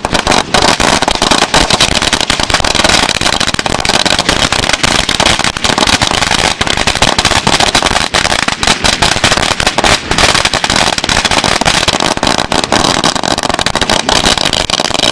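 A firecracker celebration roll, a long string of firecrackers, going off in a dense, unbroken rapid-fire run of sharp bangs.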